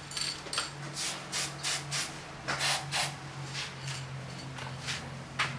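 Aerosol disc-brake anti-squeal spray hissing in a series of short bursts as it is applied to the metal backing side of brake pads. A steady low hum runs underneath.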